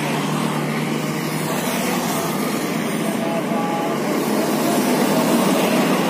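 Steady road traffic noise: a constant rush of passing vehicles, with a faint short tone now and then.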